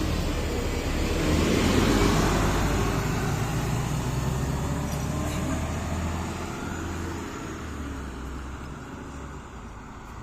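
King Long KLQ6129GQ2 CNG city bus running, its engine and Voith automatic gearbox giving a steady low hum. It is loudest about two seconds in, then fades gradually.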